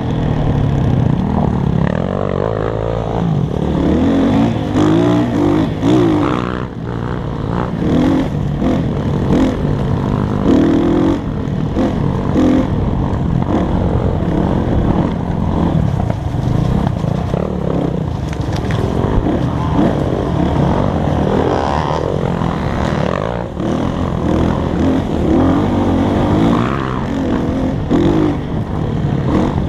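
Dirt bike engine running and revving up and down, the pitch rising and falling again and again as it is ridden off-road.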